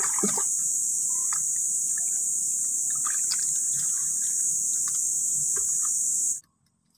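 Steady, high-pitched chorus of insects such as crickets, with faint scattered scrapes and squelches of hands digging in wet mud; everything cuts off abruptly about six seconds in.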